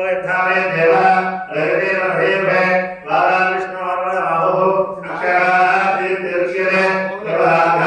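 Devotional chanting: voices chanting a Sanskrit hymn in phrases of about one and a half to two seconds with brief breaths between, over a steady low drone.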